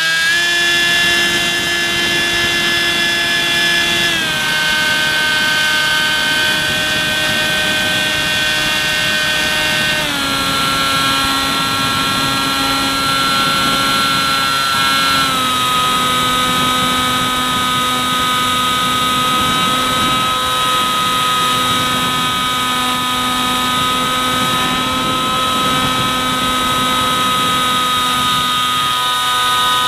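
An EPP foam FPV plane's electric motor and propeller in flight, heard from the onboard camera: a steady whine that steps down in pitch three times, about 4, 10 and 15 seconds in, as the throttle is eased back, over a rushing noise of air on the microphone.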